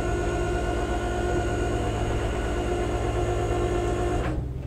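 Flatbed tow truck's engine and winch hydraulics running with a steady hum and whine; the sound drops away sharply near the end.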